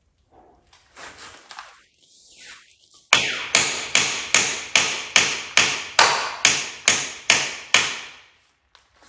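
Brass hammer striking a rusted, seized bolt in a car's rear suspension mounting: about a dozen sharp, evenly spaced blows, roughly two and a half a second, each ringing briefly. The bolt does not come free. Before the blows there is faint handling and scraping of tools.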